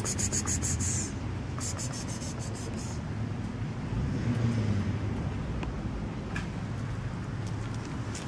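Kittens eating wet food from a plastic tub, with two short runs of rapid fine clicking in the first three seconds, over a steady low rumble of wind on the microphone.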